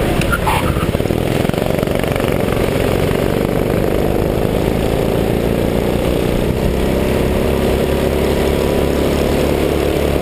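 Go-kart engine running steadily at speed close up, its pitch shifting a little with the throttle through the corners. A brief higher sound about half a second in, as another kart runs alongside.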